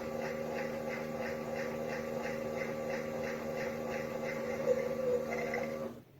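Toy washing machine running: a steady small-motor hum with a regular tick about three times a second as the drum turns, cutting off suddenly near the end.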